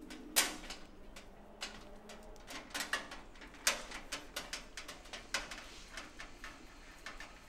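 Thin insulated wire being pulled and untangled by hand, giving irregular light clicks and rustles, the sharpest about half a second in.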